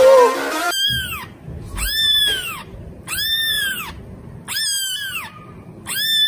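A very young kitten mewing five times, high arching cries spaced about a second apart.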